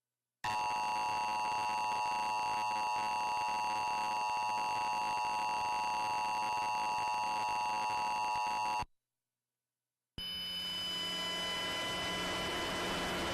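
Emergency Alert System attention signal: the steady two-tone alert that opens a monthly EAS test. It sounds for about eight seconds and cuts off suddenly. After about a second of silence, a steady hiss with a low hum begins.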